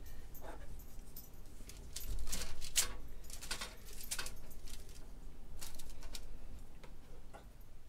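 Scattered light clinks, taps and short scrapes of a metal utensil against a skillet and a foil-lined baking tray as meatballs are moved onto toasted buns, busiest a couple of seconds in.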